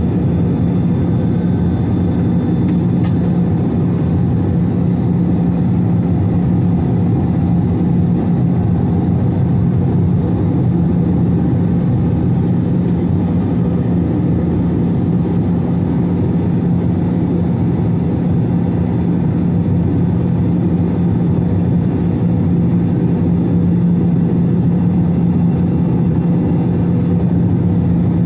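Steady cabin drone of a Delta Airbus A321-211 jet airliner, its CFM56 engines and airflow giving a constant low rumble with a steady hum.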